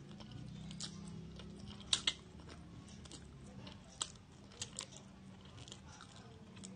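A person chewing and slurping fried instant noodles, with scattered wet mouth smacks and clicks; the sharpest smacks come about two seconds in and at four seconds. A faint steady low hum sits underneath.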